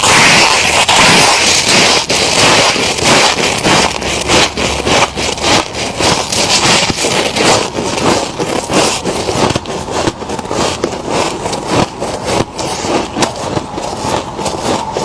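Freezer frost being bitten and chewed close to the microphone: a dense run of crisp crunches and crackles. It is loudest and fullest in the first second, then continues as many separate crunches.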